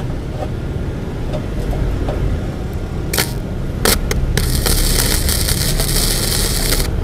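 Wintech MIG 250 welder's arc laying a tack weld on painted steel: two short crackling strikes about three seconds in, then a steady crackling hiss for about two and a half seconds that cuts off abruptly near the end.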